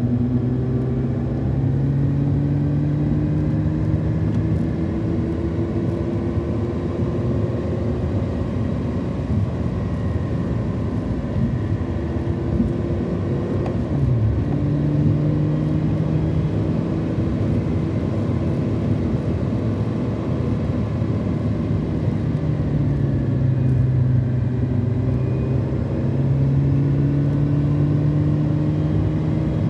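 Car engine and tyre noise heard from inside the cabin while driving at a steady pace. The engine note climbs slowly, drops sharply about halfway through, and dips once more a few seconds before the end.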